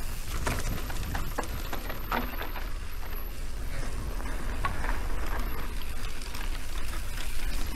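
Mountain bike rolling along a dirt trail: a steady low rumble of wind on the microphone and tyre noise, with scattered sharp clicks and rattles from the bike.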